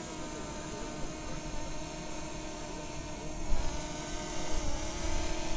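DJI Mini 2 quadcopter's propellers buzzing with a steady whine as the drone flies close by on its way back to the pilot. Wind rumbles on the microphone, with a brief gust about three and a half seconds in.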